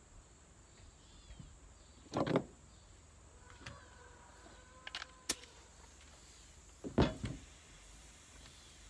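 Power drill running in two short bursts about five seconds apart, with a sharp click between them.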